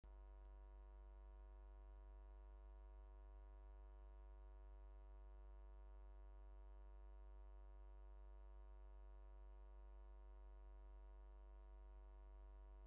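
Near silence: only a faint, steady hum with evenly spaced overtones, unchanging throughout.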